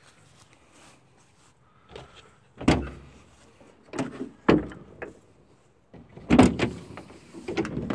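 The rear doors of an Opel Combo van being unlatched and swung open, a handful of separate clunks and knocks from the handle, latch and door panels.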